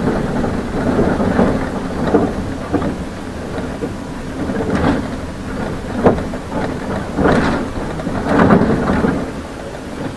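City bus heard from inside while driving: a steady low rumble with a few sharp knocks and rattles in the second half.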